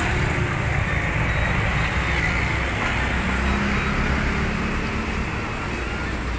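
Steady road traffic noise from passing vehicles, a low rumble with a faint engine drone in the middle.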